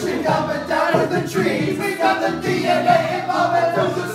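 A group of voices singing together in a loud, loose chorus, with long held notes that rise and fall.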